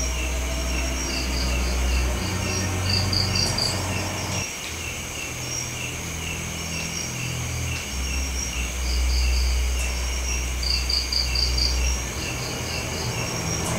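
Night insects such as crickets chirping in a steady, regular rhythm, with groups of faster pulses and a thin steady trill higher up. Beneath them runs a low drone that shifts in pitch a few times.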